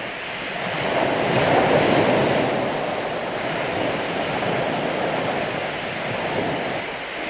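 Ocean waves breaking and washing up on a beach, one wave swelling louder about a second in and then settling into a steady wash of surf.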